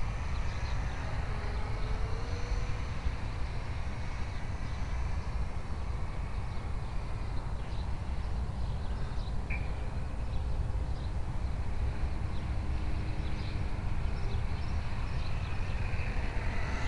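Electric RC aerobatic plane's geared brushless motor and 10x7 propeller whining faintly as it flies around overhead, the whine coming up louder near the end as the plane passes close. A steady low rumble runs under it.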